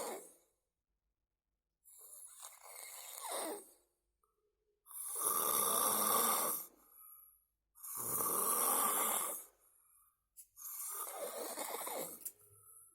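A sleeping person snoring: four long snores about every three seconds, the middle two the loudest.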